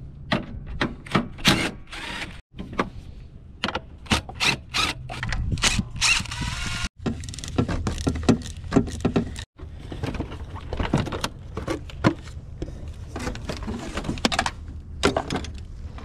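Cordless drill-driver and socket ratchet loosening 10 mm bolts on a plastic air intake box: a run of clicks, knocks and rattles, with a brief whirr from the drill about six seconds in. The sound breaks off abruptly several times.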